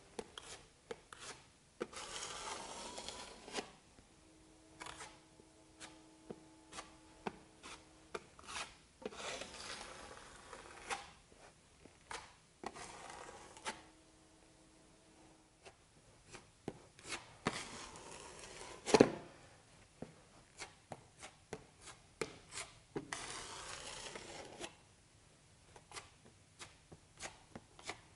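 Metal putty knife scraping epoxy crack filler into and across a crack in a concrete floor: several drawn-out scraping strokes among scattered light taps and clicks, with one sharp knock about two-thirds of the way through.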